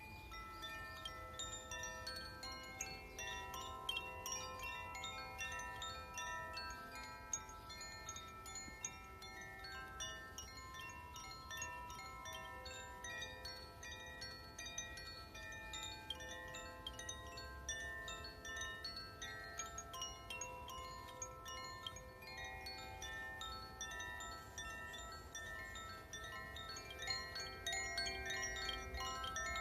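Chimes ringing continuously: many clear metal tones struck in quick, irregular succession, each ringing on and overlapping the next, over a faint low rumble. They grow a little louder near the end.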